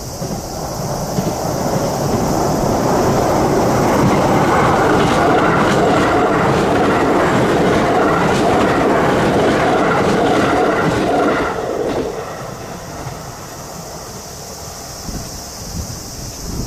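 A train crossing a railway bridge, its wheels rumbling and clattering over the span. The sound builds over the first couple of seconds, stays loud for about nine seconds, then falls away about twelve seconds in.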